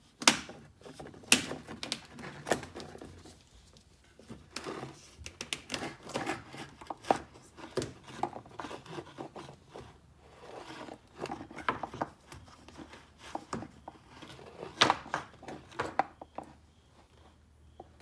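Irregular clicks, scrapes and rattles of hand tools and plastic trim as the screws holding a 2010 Camaro SS's rear lower spoiler are worked loose, with a few sharper clicks near the start and again near the end.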